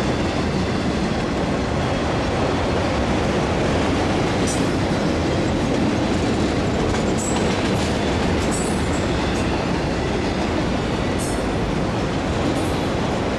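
Autorack freight cars of a passing train rolling by at steady speed: continuous rumble and rattle of steel wheels on the rails, clickety-clack at the rail joints, with a few brief high-pitched squeaks.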